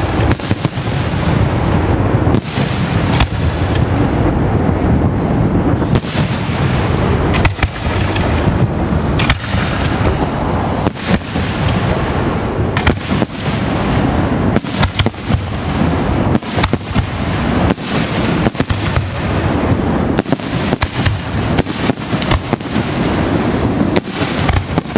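Fireworks display: a rapid, continuous string of bangs and booms from aerial shells over a dense rumble and crackle.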